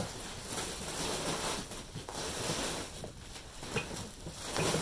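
Plastic wrap around a rolled-up mattress crinkling and tearing as it is pulled off by hand: an irregular rustle with sharper crackles.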